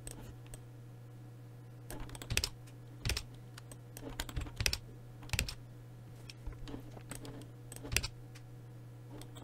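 Keys on a computer keyboard pressed, in irregular single clicks and short clusters, over a faint steady low hum.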